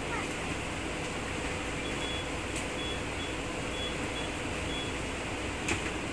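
Mercedes-Benz O405G articulated bus with its OM 447 hLA diesel idling at a stop, heard as a steady hum inside the cabin. A run of short, high beeps comes about two to four and a half seconds in, and there are a couple of light clicks near the end.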